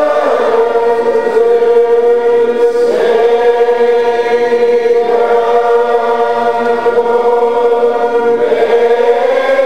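A large crowd of Old Order Mennonites, about 400–500 voices, singing together without instruments. They hold long, drawn-out notes, moving to a new pitch every two to four seconds.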